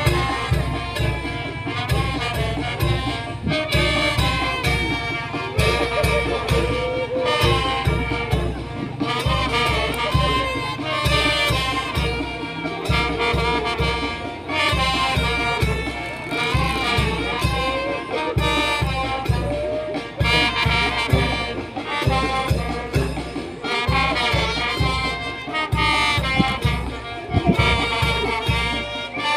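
Brass band music: trumpets and trombones playing a melody over a steady bass beat.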